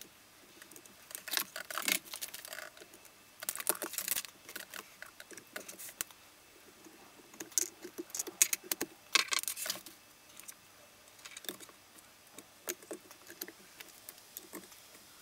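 Hands handling multimeter test leads, alligator clips and a breadboard on a silicone work mat: scattered light clicks, plastic taps and rattles in short flurries, busiest in the first ten seconds and sparser after.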